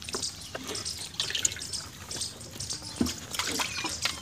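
Milk squirting from a water buffalo's teats into a metal bucket during hand milking: a quick, irregular run of short spurts, one with each squeeze.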